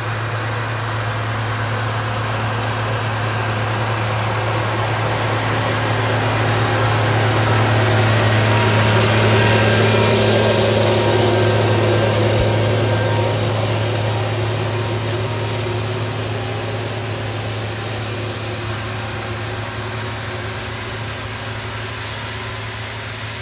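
New Holland TS6.125 tractor's diesel engine running steadily under load while pulling a 36-disc harrow, with the discs scraping through the soil. It grows louder as it passes close, peaking about ten seconds in, then fades.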